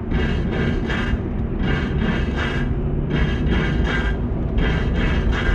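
Steady low rumble of a moving vehicle, with short bursts of higher noise coming and going every half second or so.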